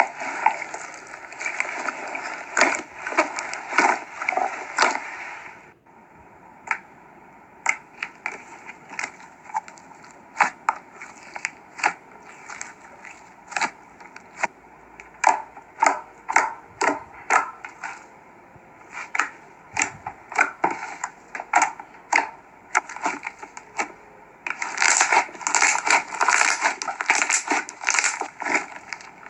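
Slime being squeezed and pressed by hand, giving dense rapid clicks and pops for about the first six seconds and again near the end, with sparser single pops in between.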